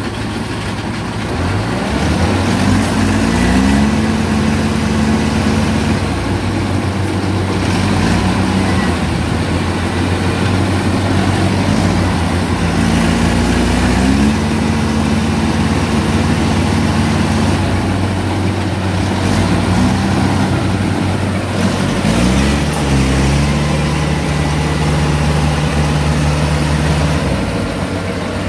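Diesel engines of a Yanmar AW82V combine harvester bogged in mud and a tracked carrier beside it, running hard as the machines strain in the mud. The engine revs up about four times, its pitch rising and holding for a few seconds each time over a steady low drone.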